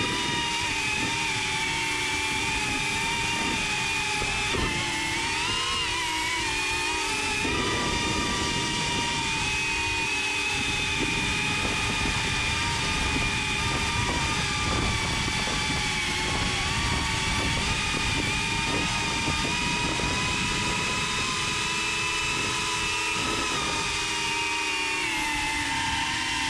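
Small quadcopter drone's electric motors and propellers whining, heard from the drone's own camera: several steady tones that waver up and down in pitch as the throttle changes, with a short rise about five seconds in and another shift near the end as it climbs.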